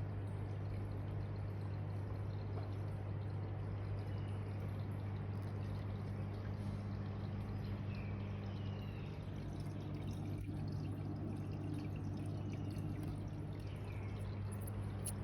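Aquarium filter running: water trickling steadily over a low, even hum from the pump motor.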